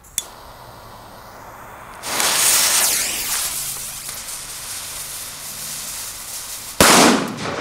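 A jet torch lighter clicks on and hisses at a firecracker's fuse. Then a firework gives a loud, steady hissing spray for about five seconds, ending in one sharp, loud bang near the end.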